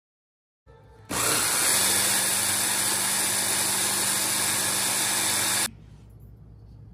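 Electric mini chopper (hand-blender chopper attachment) running steadily for about four and a half seconds, its blades grinding Oreo cookies to a powder, then switched off suddenly.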